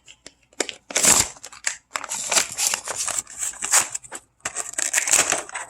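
Toy packaging being opened: irregular crinkling and rustling of plastic and card, with a louder rip about a second in.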